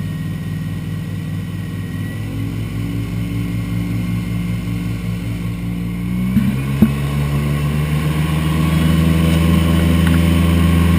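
Airboat engine and propeller running steadily, then opened up about six seconds in, growing louder with a rising pitch as the boat speeds up over the marsh.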